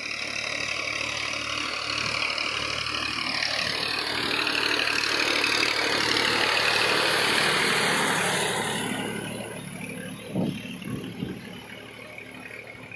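Massey Ferguson 1035 DI tractor's three-cylinder diesel engine working as it drags an implement through a flooded, muddy field, with mud and water churning. It grows loudest as it passes close about halfway through, then fades as it pulls away, with two thumps toward the end.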